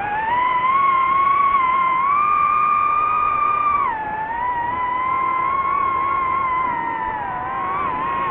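DJI FPV drone's motors and propellers whining, the pitch rising and falling with the throttle. The whine steps up about two seconds in and drops sharply about four seconds in.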